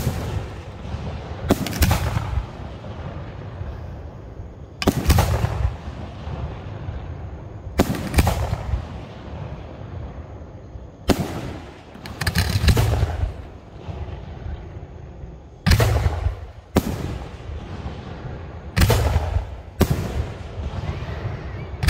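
Aerial firework shells bursting one after another, about nine sharp bangs a couple of seconds apart, each followed by a rumbling echo.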